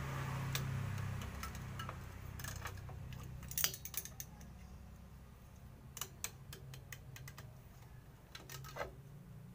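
Locking pliers clicking and clinking against the steel shoe hardware of a rear drum brake, in irregular clusters of sharp metal clicks, the loudest a little over three and a half seconds in.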